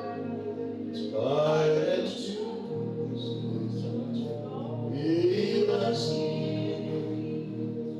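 Gospel worship singing over held instrumental chords, with sung phrases coming in about a second in and again around five seconds in.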